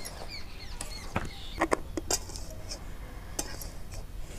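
Slotted steel spatula scraping and clinking against a steel kadhai as coarse bajra flour is stirred while it roasts on low heat, with scattered irregular taps.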